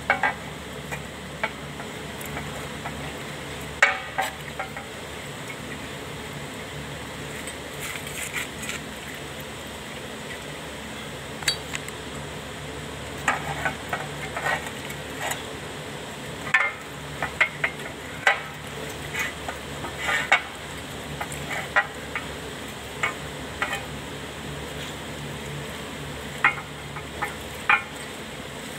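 Metal tools and parts clinking and tapping at irregular intervals, with a steady low hum underneath.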